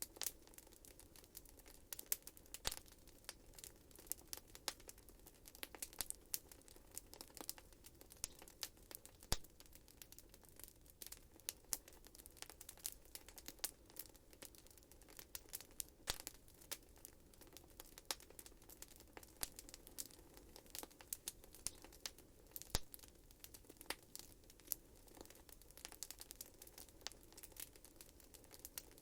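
Wood fire in a fireplace crackling: frequent irregular sharp pops and snaps over a faint steady hiss.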